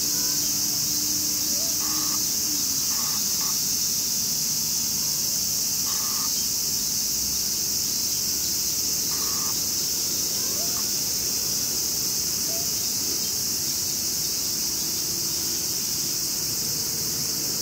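Steady, high-pitched chorus of insects in grass, with a few short, faint chirps scattered through it.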